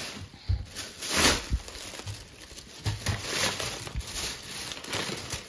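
Thin plastic carrier bag rustling and crinkling as it is picked up and rummaged through, in irregular bursts with a few soft bumps.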